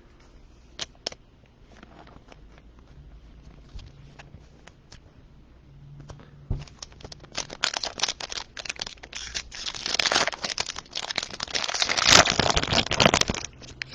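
A foil trading-card pack being torn open and its wrapper crinkled, a dense crackling that builds over several seconds and stops sharply near the end, after a few light clicks of card handling.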